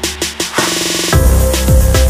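Electronic dance music with a steady drum beat; a burst of noise leads into a deep bass line and heavier kick drums about a second in.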